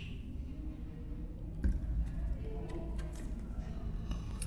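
Quiet room tone: a steady low hum with a few faint clicks about halfway through.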